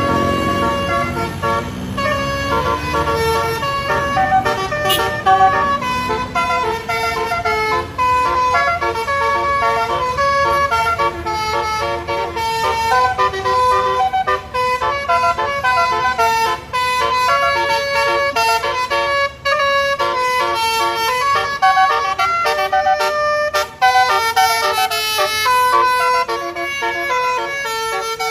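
Telolet musical bus horn playing a rapid melody, its tones jumping quickly from note to note without a break.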